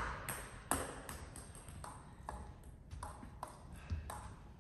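Table tennis ball clicking: a string of irregularly spaced sharp ticks as the ball is hit and bounces on the table and floor, the loudest about a second in and again near the end.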